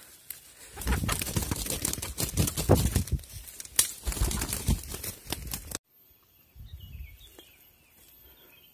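Loud rustling and crackling of dry leaves and undergrowth as someone pushes through forest brush for about five seconds, cutting off abruptly. After that it is quiet, with faint high bird chirps.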